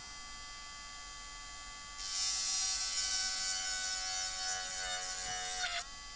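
A small handheld electric motor tool buzzing as it grinds against a Mini 4WD chassis part, starting about two seconds in and running for nearly four seconds, its pitch dropping just before it stops.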